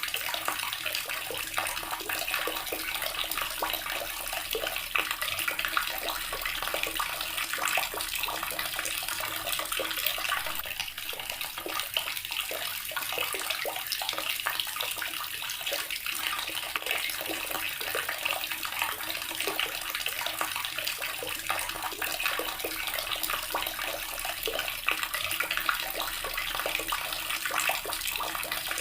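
A water tap running steadily, its stream splashing in a constant, even rush.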